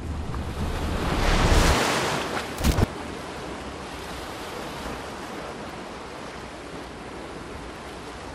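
Sea surf washing on a beach with wind: one wave swells and breaks about a second in, then the wash settles to a steady hiss. A short, sharp double crack sounds just under three seconds in.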